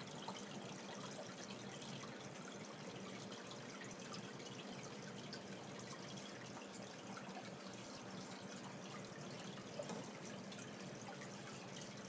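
Aquarium water trickling and dripping steadily, with small drips throughout and a faint low hum underneath.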